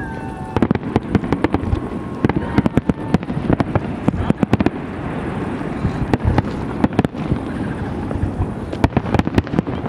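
Aerial fireworks display going off: a rapid run of sharp bangs and crackling reports, coming in dense clusters several times over.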